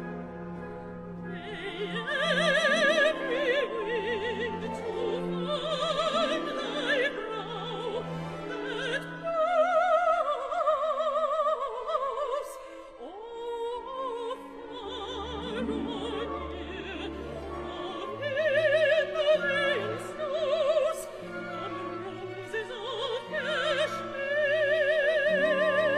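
Female classical voice singing an operatic song with wide vibrato over an orchestra, the voice coming in about a second and a half in.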